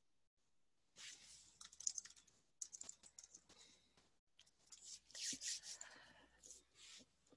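Faint, irregular typing on a computer keyboard, a run of quick key clicks with short pauses, picked up by a video-call microphone.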